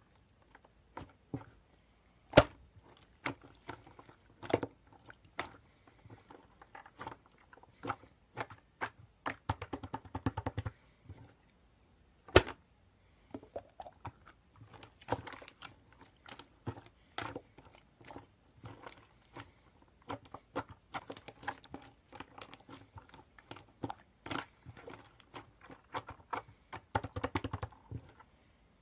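Irregular small clicks, taps and crackles in a small room, with two sharper knocks about two and a half seconds and twelve seconds in.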